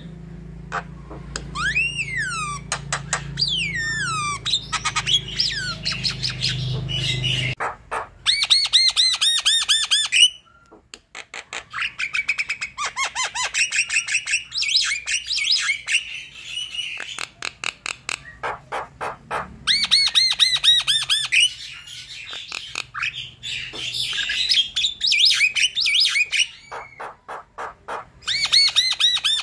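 Javan myna singing a long, varied song: rapid chattering clicks mixed with whistled slurs, broken by loud, fast rattling trills about eight seconds in, again around twenty, and near the end. A low hum underlies the first seven seconds and stops abruptly.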